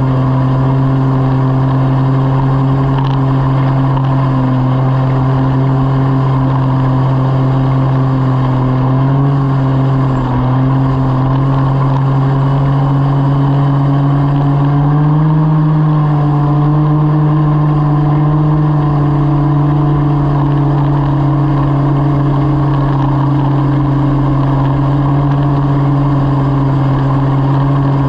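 Ski-Doo 900 turbo snowmobile's turbocharged three-cylinder four-stroke engine running steadily at trail-cruising speed, heard from the rider's seat. Its pitch dips briefly about nine seconds in and rises a little with the throttle about fifteen seconds in, then holds.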